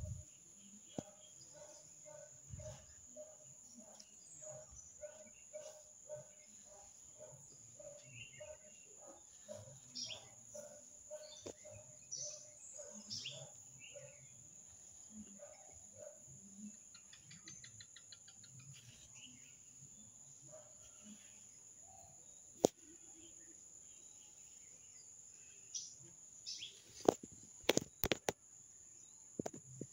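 Faint outdoor ambience: a steady high-pitched insect drone, with a bird calling repeatedly, about two calls a second, through the first half. A few sharp clicks come near the end.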